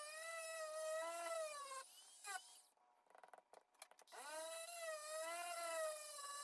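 Dremel rotary tool running on low speed with a polishing compound wheel on a straight razor's spine, a high whine whose pitch wavers as the tool is pressed on and eased off. It cuts out about two and a half seconds in, with a few small clicks, and comes back about a second and a half later.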